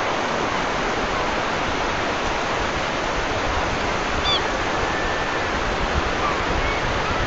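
Steady rush of running water, with a few short bird chirps from about four seconds in.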